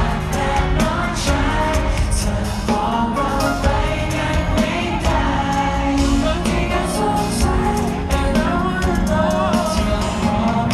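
Thai pop song performed live through a concert PA: male vocals sung into handheld microphones over a loud backing track with a steady beat.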